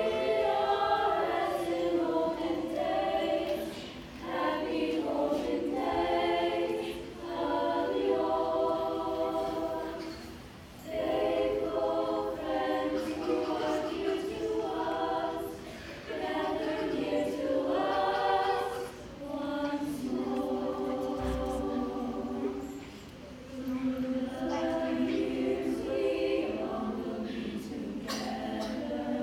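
High school girls' chamber choir singing a Christmas song in harmony, in phrases of a few seconds each with short breaks between.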